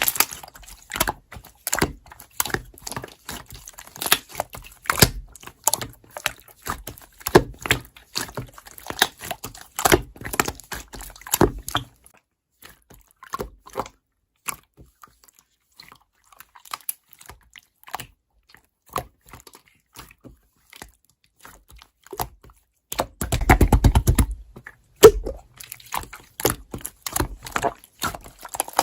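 Slime being squished and poked by hand: a fast run of sticky clicks and small air-bubble pops. It thins out almost to nothing about halfway through, then a louder, dense squelching burst comes near the end before the clicking picks up again.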